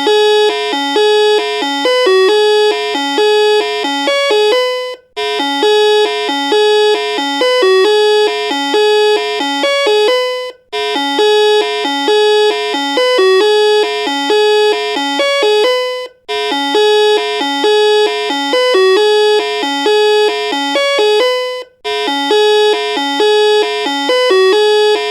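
Electronic doorbell playing a short, funny melody in bright electronic tones. The same phrase repeats about every five and a half seconds, each time after a brief silent break.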